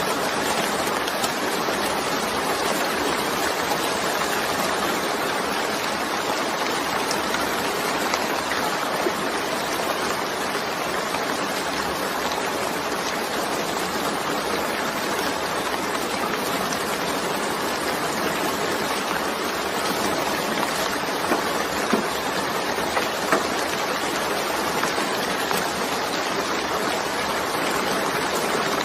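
Steady rain falling, an even hiss of many drops, with a few sharper drop ticks a little past two-thirds of the way through.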